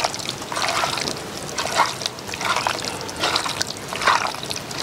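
A bare hand squelching raw prawns through a wet, oily spice paste in a clay pot: repeated squishing strokes, a little more than one a second.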